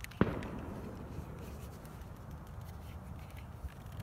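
A single firework bang about a quarter-second in, with an echo trailing off over most of a second, over a steady low rumble.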